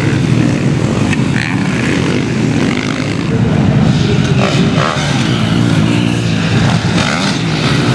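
Supermoto motorcycle engines running hard on the track and revving up and down, with a loud, steady engine sound throughout.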